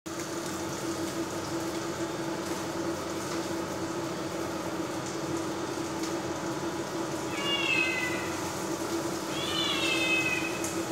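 A cat meows twice in the second half, each meow falling in pitch, over a steady low hum.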